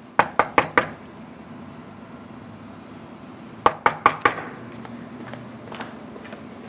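Knocking on a door: a quick set of four knocks, then after about three seconds a second set of four.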